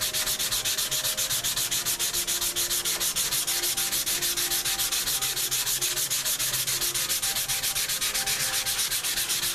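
Sandpaper on a foam sanding block rubbing over a surface in quick, even back-and-forth strokes, about seven a second, with a loud, steady hiss.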